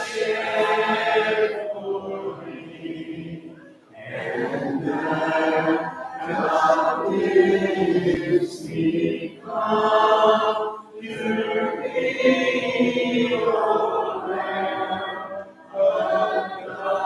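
Congregation singing an invitation hymn a cappella, many voices together without instruments, in sung phrases with a short breath pause about four seconds in.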